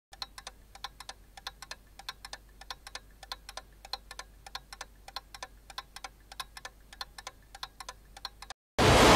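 Rapid, slightly uneven series of sharp ticks, about four or five a second, over a faint low hum. The ticks stop abruptly near the end, and a much louder rushing noise cuts in just before the end.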